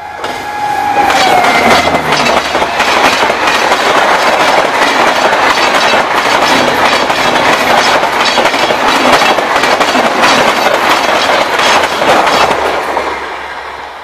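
The low-tone horn of a WAP 7 electric locomotive drops in pitch as it passes and stops about a second and a half in. Then the LHB coaches of the Rajdhani Express rush by at about 130 km/h, with a rapid clickety-clack of wheels over the rail joints. The rush fades away near the end as the train recedes.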